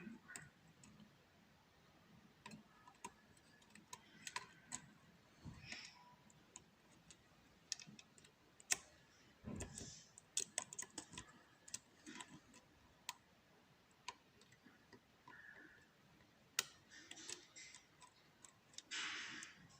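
Faint, irregular clicks and light scrapes of a hook pick working the pins inside a pin-tumbler challenge lock held under turning tension with a pry-bar tension wrench.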